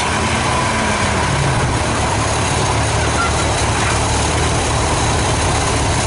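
Diesel engines of large four-wheel-drive farm tractors running steadily at low revs as the tractors creep forward.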